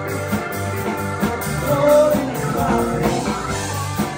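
Live rock-and-roll band playing with electric guitars, drums and a keyboard, to a steady beat.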